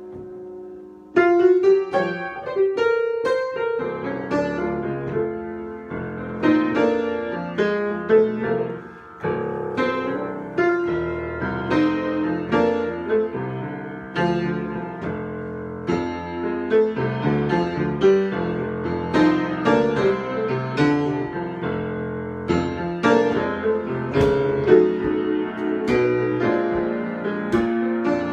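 Solo piano improvisation: notes and chords struck and left to ring. A fading chord opens, then a loud new passage comes in about a second in and carries on.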